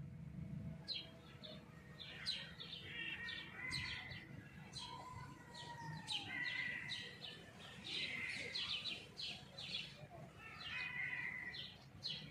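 Small songbirds chirping and twittering, with quick repeated high notes and trills all through, over a low rumble that is strongest at the start.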